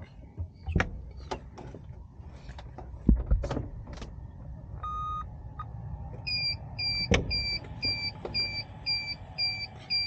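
Clicks and knocks of handling in the cockpit of an Archaeopteryx electric hang glider, then a single beep about five seconds in and a steady run of about nine short, high beeps, a little over two a second, from the electric drive being readied just before its push propeller spins up.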